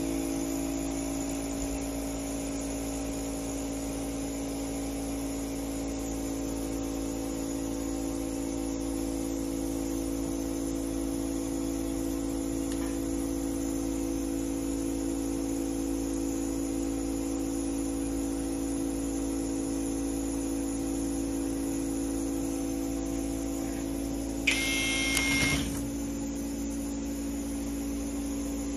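Steady machine hum with several low, constant tones. About 25 seconds in, the electric screwdriver on the robot arm whirs for about a second as it drives a screw.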